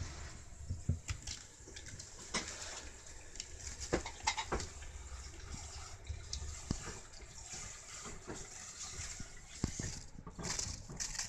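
A kitten's claws and paws scrabbling and scratching on a wicker basket and wooden floor as it bats at a string, with irregular taps, clicks and rustles.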